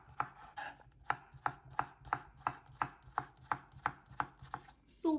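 Chef's knife slicing a cucumber on a bamboo cutting board, the blade knocking on the board in a steady rhythm of about three cuts a second.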